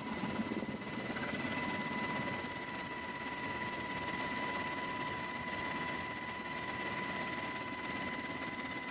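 Helicopter in flight heard from on board: a steady engine and rotor rumble with a constant high whine on top.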